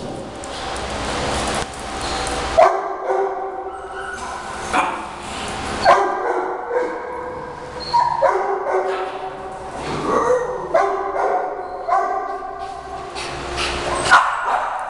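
Several dogs barking and yipping over and over, in sharp calls every second or two. A rushing noise runs under the first two and a half seconds.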